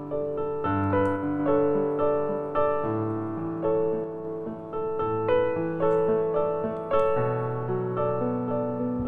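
Background piano music: a gentle melody of struck notes that ring and fade, a new note or chord about every half second.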